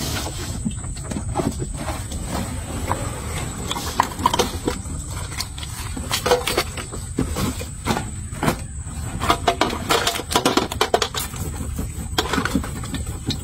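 Rustling and irregular clicks and splats as a wet mesh net trap is shaken out over a stainless steel basin, small fish dropping into the basin, over a steady low rumble. The clicks come thickest in the middle of the stretch.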